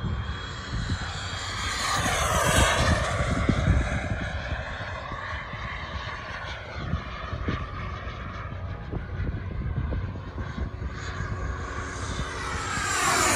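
Xicoy turbine engine of a CARF Rebel RC jet whining as the jet flies passes. The sound swells as the jet comes close about two seconds in and again near the end.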